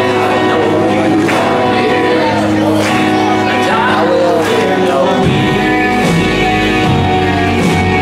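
Live gospel worship music: singing over a band with a steady drum beat, the bass dropping lower about five seconds in.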